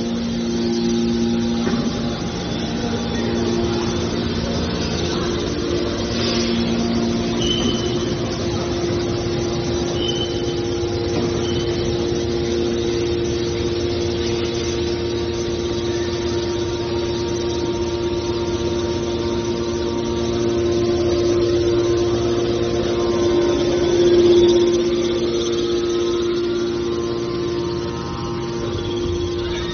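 Small aluminium can baler running: a steady machine hum with constant tones, swelling briefly about 24 seconds in.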